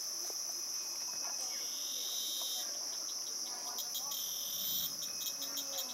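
Cicadas singing in chorus: a steady, high, shrill drone, with a second, lower cicada joining about a second and a half in. The second cicada alternates between a continuous buzz and rapid pulses of about five a second.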